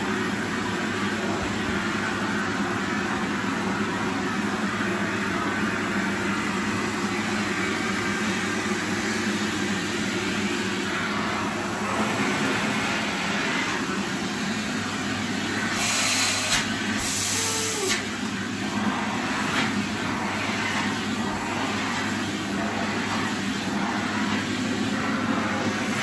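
Upright vacuum cleaner running steadily, its hose and tool working carpeted stairs, with two brief sharper hisses around the middle as the airflow changes.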